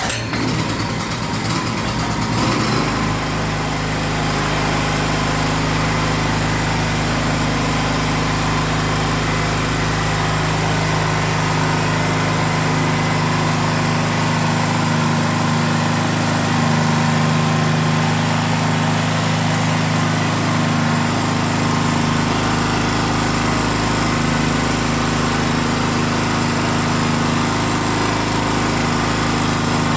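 Small gasoline generator engine starting up, settling over the first few seconds, then running steadily. Fuel is reaching the carburetor again through the freed inlet hose, which had been pinched and starving the engine.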